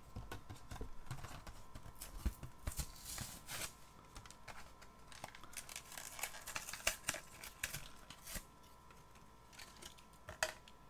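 Hands handling small die-cast toy cars on a tabletop: scattered light clicks of metal bodies and plastic wheels, with rustling of card.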